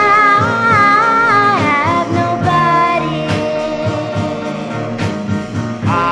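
Oldies soul record playing: a full band with a held melody line that slides between notes.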